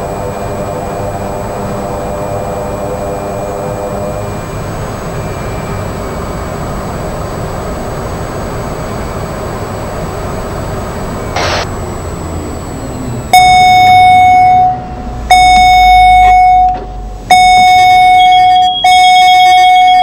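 The Caravan's turboprop engine drones steadily during the taxi. From about 13 seconds in, loud electronic tones come in, four held notes of about a second and a half each, and stop abruptly.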